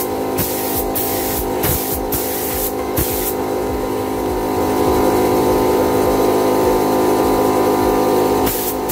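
Compressed-air gravity-feed spray gun hissing as it sprays high-temperature gloss black paint onto a muffler, under background electronic music.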